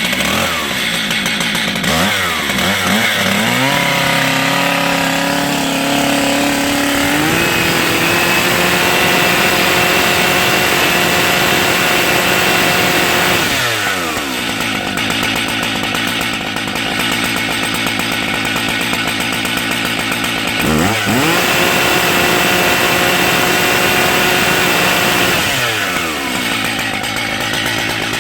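Stihl MS880 chainsaw's 121.6 cc two-stroke engine, brand new on its first run, revved up and held at high revs in three long stretches, dropping back sharply for a moment between each, then falling away near the end.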